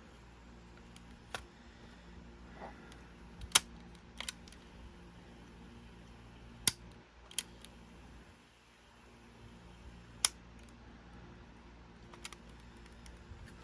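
A handful of sharp, irregular clicks and taps from small hard objects being handled, over a faint steady hum. The loudest click comes about three and a half seconds in.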